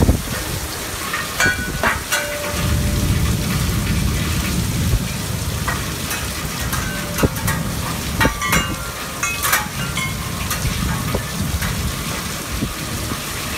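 Heavy rain pouring steadily onto a yard and patio, with a low rumble of wind from about two and a half seconds in and a few short metallic pings from wind chimes.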